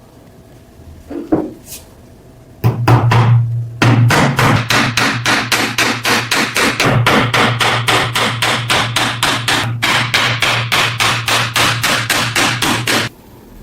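Rapid, regular hammering, about four blows a second for roughly ten seconds, over a steady low hum that starts and stops with the blows. A few lighter knocks come just before it.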